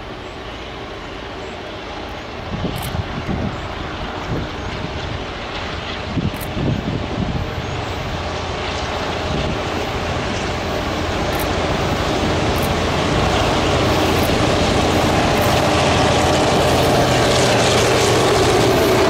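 Diesel locomotive engine running and slowly growing louder as the train approaches, with wind buffeting the microphone in the first few seconds.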